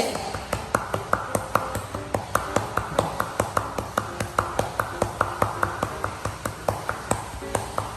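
Rapid, evenly spaced patting at about four slaps a second: cupped-hand chest percussion by a physiotherapist on a child with a cough and cold, done to loosen mucus.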